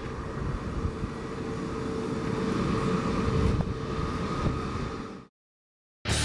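Jet airliner landing, an Airbus A320neo-family twinjet: a steady engine rumble with a high whine as it flares and the main wheels touch down about four seconds in. The sound cuts off suddenly a little after five seconds.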